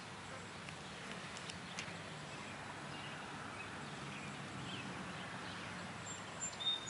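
Faint outdoor background noise with a few soft bird chirps; just before the end a high, steady bird call begins.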